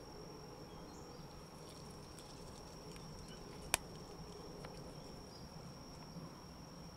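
Faint insect call: a steady, high single tone over low background noise. One sharp click sounds about halfway through.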